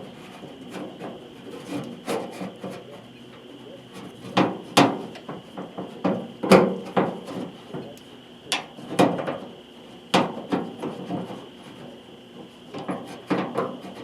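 Irregular knocks, clunks and scraping of hand tools and metal parts being worked inside a pickup tailgate during a latch repair, the sharpest knocks falling about five to ten seconds in.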